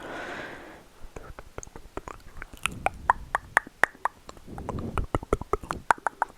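Close-miked ASMR clicks, many sharp, irregular ones a second, after a short breathy hiss in the first second.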